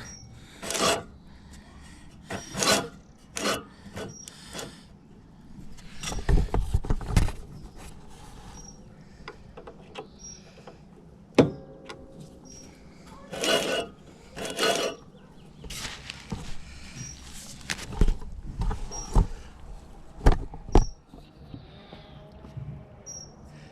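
Irregular scraping and rubbing with a few sharp knocks: a cylinder mower's reel blades turned by hand against an abrasive sharpening strip on the bottom blade while the blade is set to just touch it. The mower's motor is not running.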